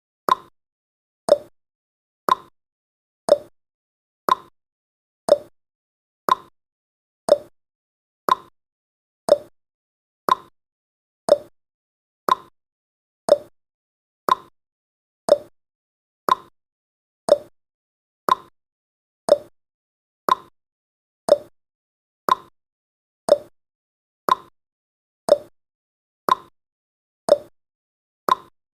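Countdown timer's ticking sound effect: one short click every second, alternating between a lower and a higher pitch like a tick-tock.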